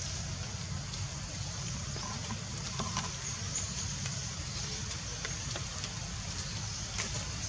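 Steady outdoor background noise: a low rumble with an even high hiss above it and a few faint clicks, with no clear animal call.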